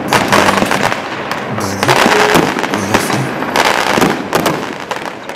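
Fireworks going off: several sharp bursts with dense crackling between them, over background music.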